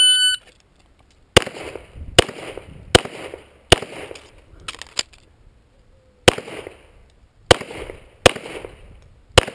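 A shot timer's start beep, then an EAA/Tanfoglio Witness Match 9mm pistol firing four shots about a second apart. A gap of about two and a half seconds follows for a reload, with a faint double click in it, then four more shots.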